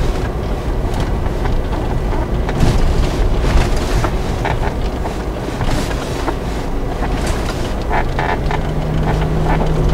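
A vehicle driving slowly over a rough, unpaved hillside track, heard from inside the cabin. A continuous engine and road rumble runs under frequent knocks and rattles as it jolts over the bumps.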